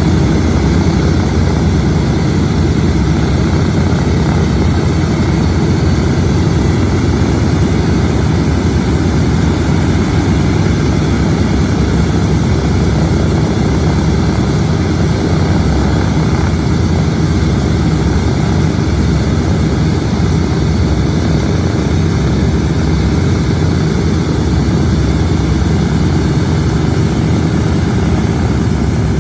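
The four Wright R-1820 Cyclone nine-cylinder radial engines of a Boeing B-17G Flying Fortress run steadily on the ground with their propellers turning, while the bomber stands still. The sound is loud and even throughout, with no change in engine power.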